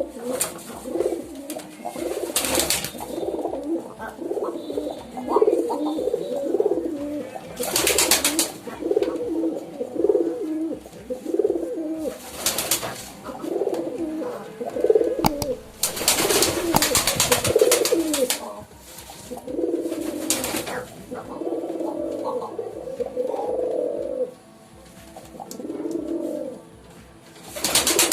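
Pigeons cooing, a run of low, throaty, repeated coos with short gaps between phrases. Several brief rustling noises come in over the cooing, the longest lasting about two seconds midway through.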